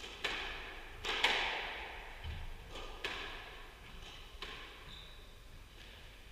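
Squash rally: the ball struck by rackets and hitting the court walls, about five sharp cracks a second or so apart, each with a ringing echo off the court walls, the loudest just after a second in.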